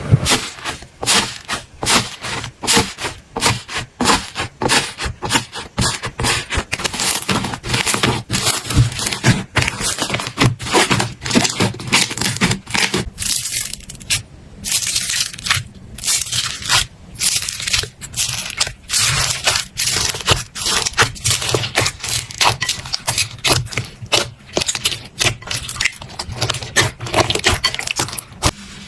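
Slime being squeezed and poked by hand, giving a dense, irregular run of crackles and pops that rise and fall in short bursts.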